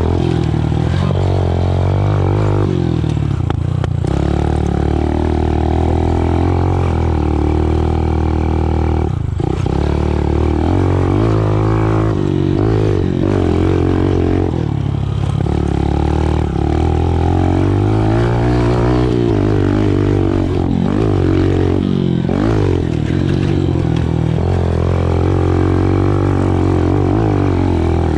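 Small 110cc four-stroke dirt bike engine being ridden, revving up and falling back again and again as the rider works the throttle and gears, its pitch rising and dropping every few seconds.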